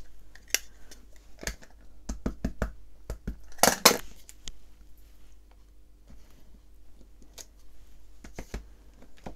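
Clear acrylic stamp block and ink pad knocking and clicking against a craft desk while a clear stamp is inked and pressed down: a scattered run of light clicks, with one longer, louder scuff about three and a half seconds in.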